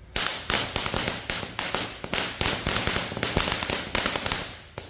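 Red Lancer 'Full Tilt' firework fountain going off with a rapid run of sharp pops and cracks, several a second, easing off briefly near the end.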